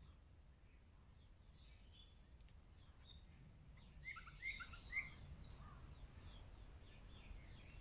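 Faint birdsong: scattered short chirps, with a quick run of brighter calls about four to five seconds in.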